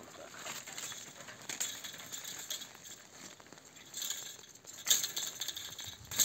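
Hand pruning shears snipping grapevine canes: several sharp clicks of the blades closing, the loudest about five seconds in, over the rustle of the canes and dry leaves being handled.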